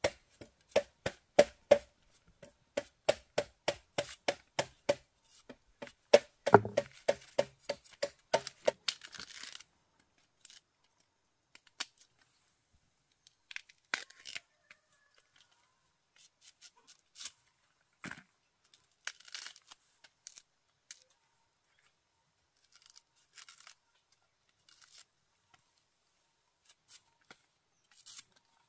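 A run of quick, even knocks, about three a second, for the first nine seconds, followed by a short rustle and then scattered light clicks and rustles.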